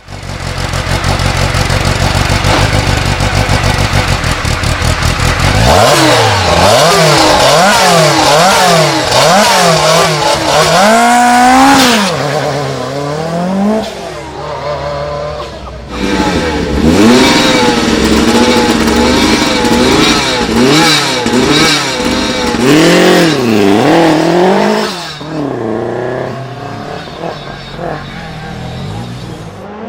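Lancia Group B rally car's supercharged four-cylinder engine running steadily at low revs, then revved hard, rising and falling in pitch about once a second, from about six seconds in. It eases off briefly midway, revs hard again, then fades near the end.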